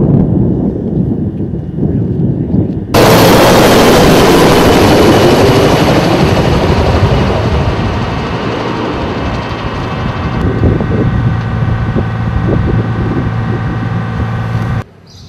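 Loud noise of a military armoured vehicle's engine heard from inside the troop compartment, with a steady droning tone. It starts abruptly about three seconds in, after a low rumble, eases off gradually and stops suddenly just before the end.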